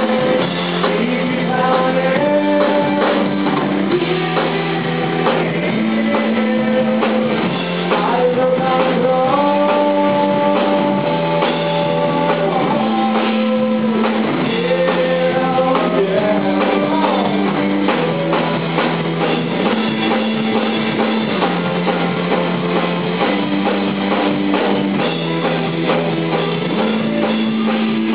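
Rock band playing live with electric guitars, electric bass and drum kit. A repeating low riff runs under held, bending lead notes.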